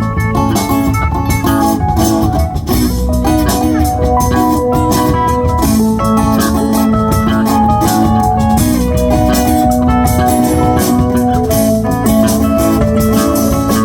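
Live rock band playing an instrumental passage, an organ-toned keyboard holding sustained notes over guitar, bass and drums.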